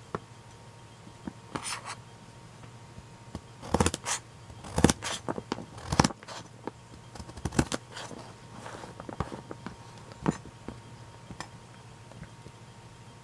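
Kitchen knife slicing slowly through raw carrot onto a thin plastic cutting sheet: about a dozen crisp cuts and blade taps, unevenly spaced with pauses between them.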